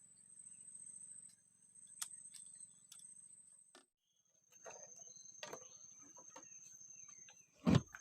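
A high, steady insect drone, changing to a slightly lower drone after a brief break near the middle, with scattered light clicks and a louder thump near the end.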